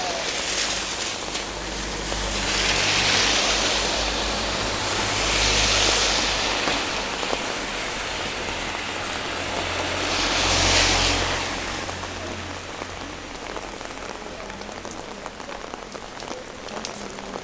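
Heavy rain falling steadily, with three vehicles passing on the wet road, their tyres hissing as each swells and fades over about two seconds. After these passes only the steady rain is left.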